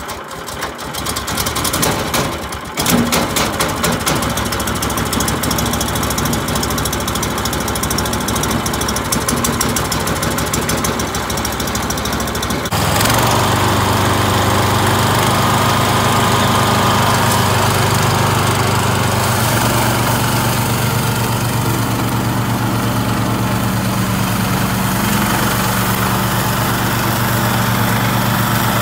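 Small horizontal-shaft petrol engine of a walk-behind brush mower started with the choke on, catching and running unevenly, revving up about three seconds in. About halfway it changes abruptly to the engine running steadily under load as the mower cuts through dense weeds.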